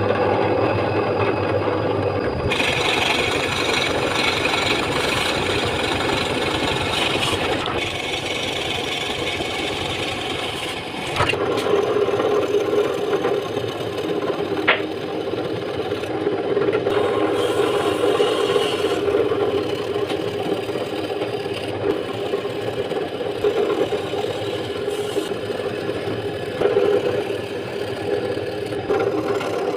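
Electric drum sander running steadily, its sandpaper drum sanding wood with a whir and a rasping hiss that swells and eases as the work is fed.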